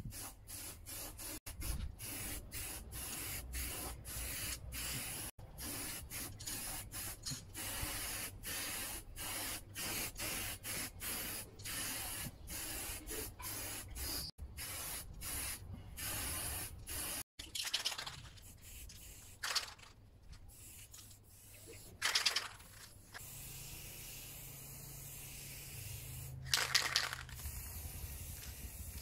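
Aerosol spray paint can hissing in many short bursts close together, as paint is sprayed onto a metal cabinet. In the second half, a few longer separate sprays with pauses between them.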